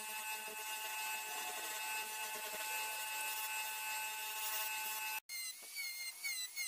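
Wood lathe running with a steady whine while a hand chisel cuts grooves into a spinning wooden tyre. About five seconds in this breaks off and a handheld rotary tool with a small cutoff disc takes over, its whine dipping and recovering about three times a second as the disc cuts tread notches into the wood.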